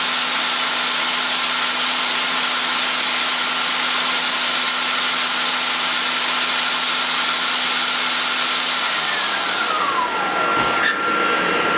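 Mori Seiki NL1500 CNC lathe spindle running at about 5,000 RPM with a steady hum and whine. About nine seconds in it winds down, its pitch falling away as the spindle slows, while a thin steady tone carries on.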